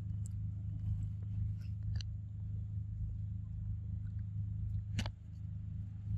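A steady low mechanical hum, with a few sharp clicks over it, the loudest about five seconds in.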